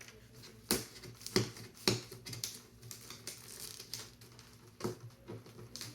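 Sharp plastic clicks and taps at irregular intervals, about four louder ones among smaller ticks, as the canopy of an RC jet is worked against its latches on the fuselage while it refuses to come free.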